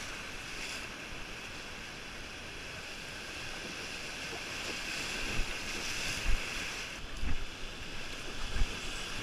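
Whitewater rapids rushing steadily past an inflatable raft. From about five seconds in, a few dull thumps break in as the raft bucks through the waves.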